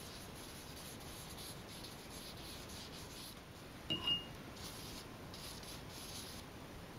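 A wet paintbrush scrubbing across paper in faint, repeated strokes, working water-soluble wax pastel. About four seconds in, the brush clinks once against the glass water jar with a short ring.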